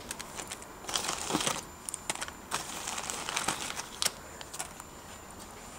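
Plastic packaging crinkling and rustling in irregular bursts with sharp crackles as it is handled and pulled apart.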